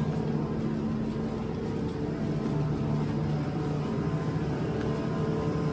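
Steady low rumble of a shopping cart's wheels rolling over a smooth store floor, over the constant hum of refrigerated display cases.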